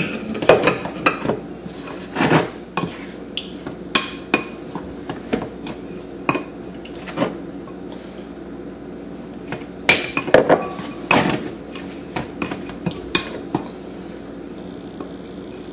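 Metal spoon clinking and scraping against a ceramic mixing bowl in irregular taps, with a busier run of clinks about two-thirds of the way through, as margarine is cut into a brown sugar, flour and cinnamon crumb topping.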